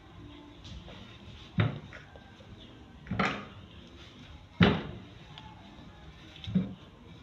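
Wooden rolling pin knocking on a worktable four times, roughly every one and a half seconds, as a sheet of wrapper dough is rolled out.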